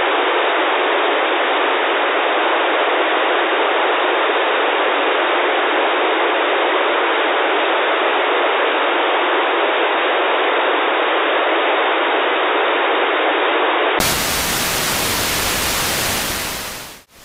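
Radio static from an RTL2832U/R820T USB software-defined radio dongle with squelch open on an empty channel near 151 MHz: a steady hiss with no bass and no top. About 14 seconds in it changes to a fuller, wider hiss as the receiver is retuned to around 26 MHz, then fades out briefly near the end.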